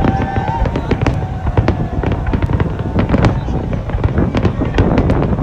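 Fireworks display going off: a rapid, continuous run of bangs and crackles over a low rumble.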